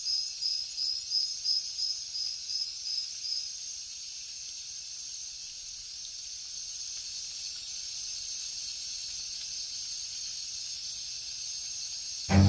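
Insects chirping and trilling in a steady high-pitched chorus, with a regular chirp about three times a second over the first few seconds. Bowed-string music starts suddenly near the end.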